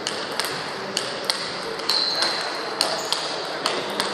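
Table tennis balls clicking off tables and bats in rallies at neighbouring tables, an irregular patter of sharp clicks about two to three a second in a large sports hall, with a brief high squeak about two seconds in.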